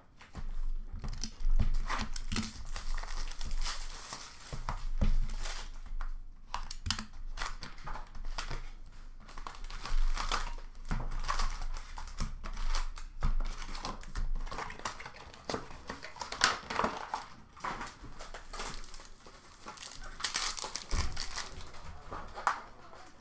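Plastic foil hockey card pack wrappers being torn open and crinkled in irregular crackling bursts, with the cards being handled.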